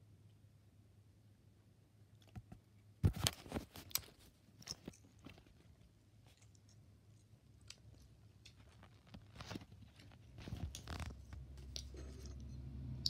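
Close-up chewing and crunching in short bursts of sharp clicks, loudest about three seconds in, with another run of clicks near ten seconds; a low rumble builds toward the end.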